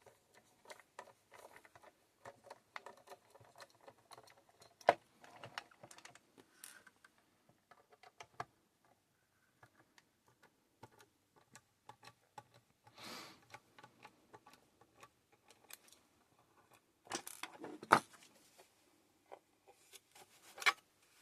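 Screwdriver and fingers working on the plastic case of a small solar charge controller as its back is taken off: scattered light clicks, ticks and taps, with a couple of sharper clicks about five seconds in and again near the end, and a short scrape about thirteen seconds in.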